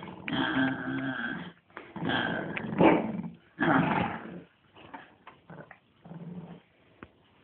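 Shih tzu growling in play, three long bouts in the first half, then only faint short sounds.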